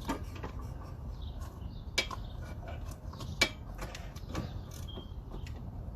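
Metal tool work on a car's front wheel hub assembly: irregular small clicks and clinks, with two sharper metallic knocks about two seconds and three and a half seconds in.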